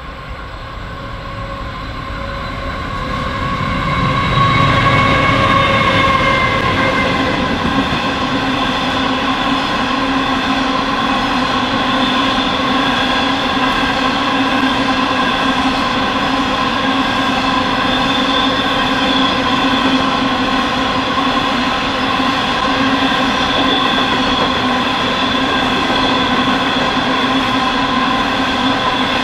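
Aurizon empty coal train running through, growing louder over the first few seconds as it approaches and loudest about five seconds in. Then a long, steady run of empty coal wagons rolls past with a constant ringing whine of several high tones.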